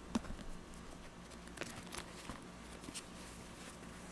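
Sparse, irregular clicks of a computer's mouse and keys being worked, over a faint steady hum.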